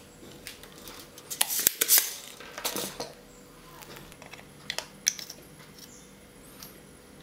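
Small metal hand tools clicking and clattering against a circuit board, with a cluster of sharp clicks and knocks between about one and three seconds in, then a few single clicks.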